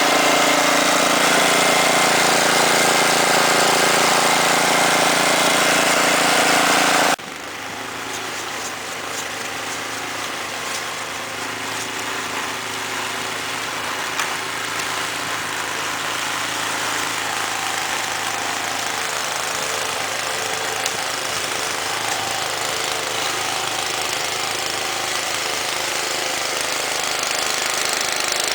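The 10 hp Tecumseh Snow King overhead-valve engine of a Toro Powershift 1028 snowblower running steadily. Its level drops sharply about seven seconds in and then slowly builds again.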